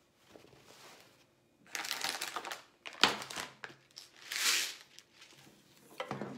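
Plastic bag crinkling in two bursts while a clear plastic compartment box of snaps is handled, with a sharp plastic click about three seconds in.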